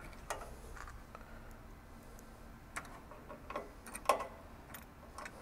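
Small, irregular clicks and taps of screws being started by hand into a metal mounting bracket, loudest about four seconds in.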